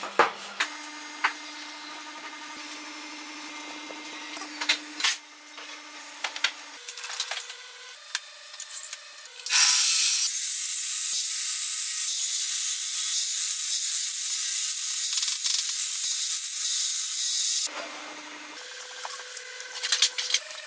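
Table saw cutting through a thick block of wood: a loud, steady, high-pitched cutting noise that starts about nine and a half seconds in and stops suddenly about eight seconds later. Before and after it come scattered knocks of the wooden block being handled and set down, and near the end light taps and scrapes of a chisel working in the cut slot.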